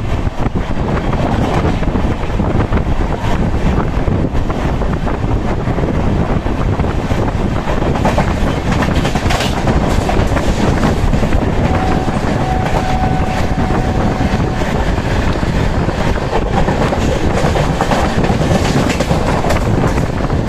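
Moving express train's running noise heard from on board: a steady rumble with wheels clattering over the rail joints. A faint held tone lasts about three seconds midway.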